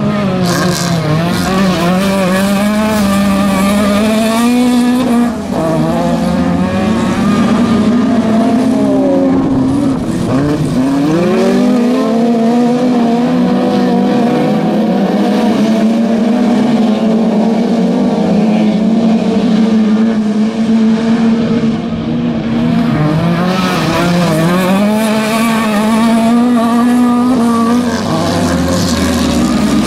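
Several autocross saloon-car engines racing at once on a dirt track. They rev hard, their pitch climbing and dropping again and again as the cars accelerate out of the corners and lift for the next ones.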